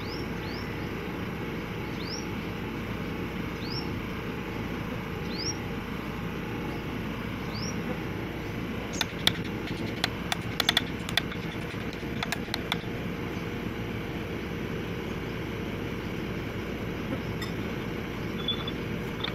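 Excavator diesel engine idling steadily, with short rising chirps every second or two through the first eight seconds. About nine to thirteen seconds in comes a cluster of sharp metal clinks and taps as gear parts are fitted into the track final drive.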